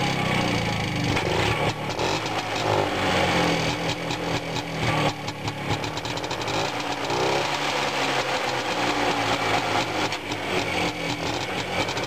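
WSK 125 motorcycle's single-cylinder two-stroke engine running while the machine stands still, revved up a few times.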